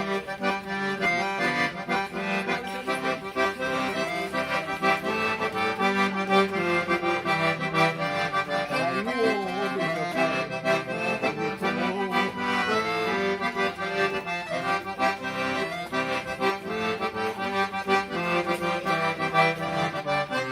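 Accordion (gaita) playing an instrumental interlude of a gaúcho fandango-style song, with steady chords and melody and no singing.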